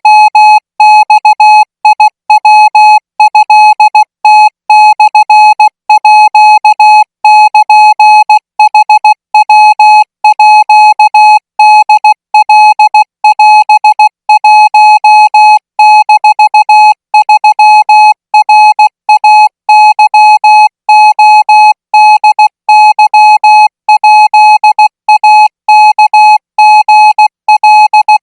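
Morse code practice signal in Thai Morse code, sent at 20 words per minute. A single steady beep tone is keyed on and off in a rapid run of dots and dashes, with short gaps between characters.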